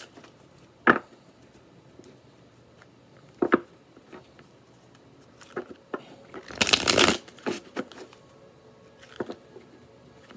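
Tarot deck being shuffled by hand: a few sharp card taps and slaps, then about six and a half seconds in a longer rush of cards riffling together.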